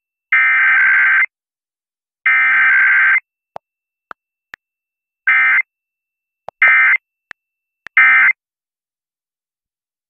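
Emergency Alert System digital data tones on an FM radio Required Weekly Test: the last two of three screeching one-second SAME header bursts, then three short end-of-message bursts about a second and a half apart. Short clicks sound in the silent gaps between the bursts.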